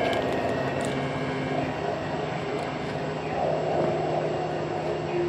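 Steady road traffic noise, an even rush of passing vehicles, with a few faint sustained tones held over it.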